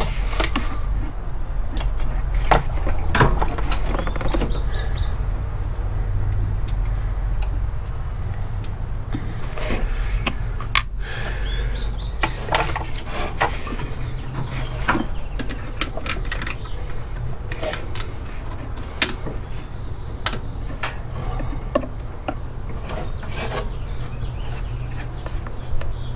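Hands handling an engine-bay wiring harness and its plug connectors: scattered short clicks, rubs and rustles of plastic and wire over a steady low hum.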